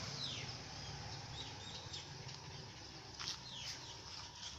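Birds chirping: a series of short, quick calls that each drop in pitch, with a few brief whistles, over a steady low background hum.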